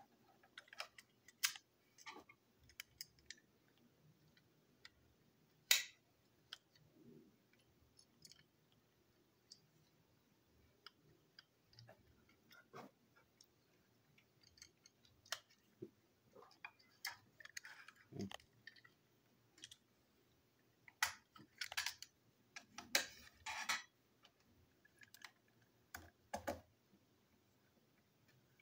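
Small plastic parts of a toy train engine clicking and tapping as they are handled and taken apart, with a screwdriver working on the chassis. Scattered sharp clicks, the loudest about six seconds in and a busier run of them a little past two-thirds of the way through.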